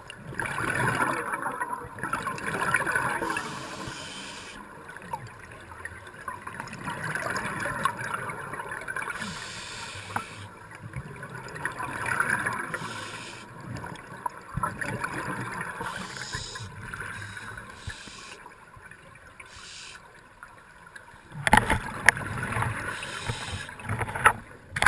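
Muffled underwater bubbling and gurgling, swelling up every few seconds. A louder, rougher stretch with knocks comes near the end.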